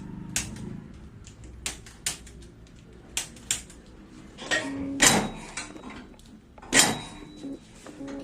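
A series of sharp cracks and pops, about eight, often in pairs, with the two loudest and heaviest about five and seven seconds in: joints cracking during a chiropractic back and neck adjustment.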